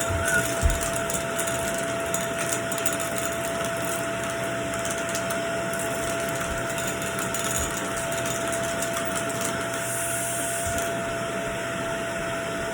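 Vacuum cleaner running steadily, its motor giving a constant whine over the rushing airflow, with a couple of short knocks about half a second in.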